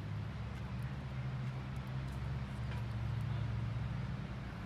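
A low, steady engine hum, with a few faint ticks over it.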